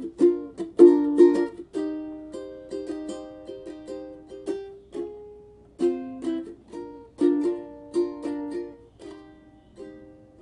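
Solo ukulele playing an instrumental passage: plucked notes and chords that ring and die away, thinning out and growing fainter near the end.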